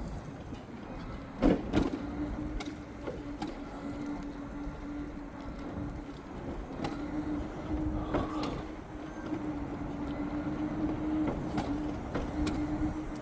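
A steady motor hum over road noise, with a couple of sharp knocks about one and a half seconds in and another about eight seconds in.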